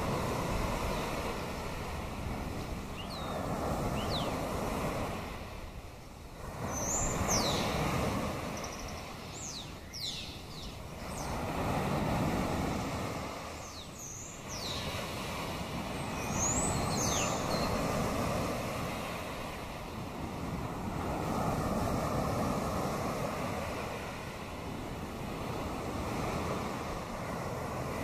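Sea waves washing on the shore, swelling and fading about every four seconds, with short high bird calls, some falling in pitch, several times in the first two-thirds.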